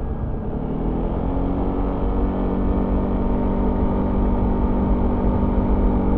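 Yamaha XMAX 300 scooter's single-cylinder four-stroke engine running through its stock exhaust, heard on board while riding. The engine note dips in the first second, then rises and holds steady.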